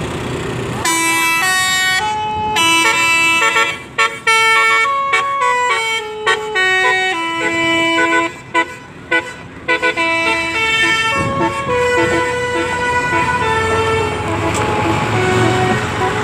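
Bus basuri 'telolet' musical horn playing a tune: a run of stepped horn notes, some held and some short and quick, over engine and road noise. Near the end the tune thins out and the road noise takes over.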